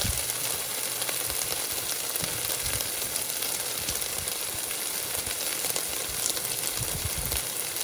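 Chopped red onion and crushed garlic sautéing in olive oil in a hot pot: a steady sizzle, with a few low bumps near the end.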